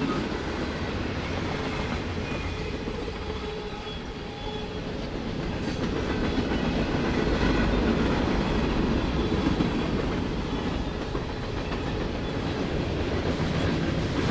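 A Norfolk Southern mixed freight train's cars roll past close by: tank cars, covered hoppers and a gondola, with a steady rumble and the clacking of steel wheels over the rail joints. Near the end the engine of a diesel locomotive coming up within the train starts to drone in beneath the wheel noise.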